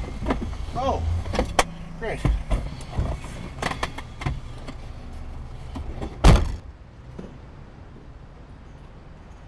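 Bumping, knocking and shuffling as a person squeezes out of a Honda CR-V wedged between parked cars, with a short squeal about a second in. A car door shuts hard about six seconds in, the loudest sound, followed by a low steady hum of traffic.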